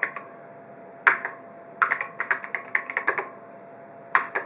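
Typing on an Apple II keyboard as assembly source is keyed in. There is a single keystroke about a second in, a quick run of keystrokes through the middle, and another short cluster near the end.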